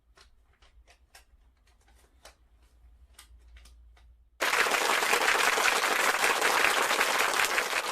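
Applause that starts suddenly about halfway through and stays loud and dense, after a few faint scattered clicks or claps.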